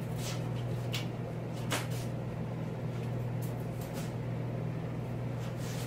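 Scattered clinks and clatters of hand tools being picked up and set down on a workbench, over a steady low hum.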